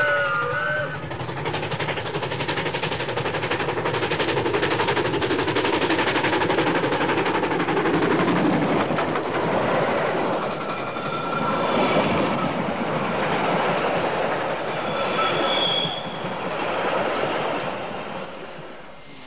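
The tail of a steam whistle blast from the MA2 steam locomotive, ending within the first second. Then the train passes close by: the locomotive working and the carriages' wheels clattering over the rails, with a couple of brief high squeals in the second half. The sound fades near the end as the last carriage goes away.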